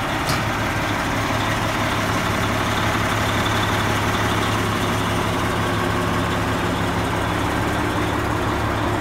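Detroit diesel engine of a heavy Oshkosh 4x4 truck idling steadily, with one short click near the start.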